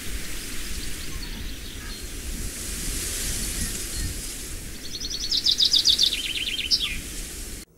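Wind blowing in a steady rush. About five seconds in, a bird sings a fast trill that drops in pitch. The sound cuts off suddenly near the end.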